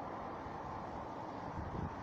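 Steady outdoor background rumble and hiss, with wind buffeting the microphone.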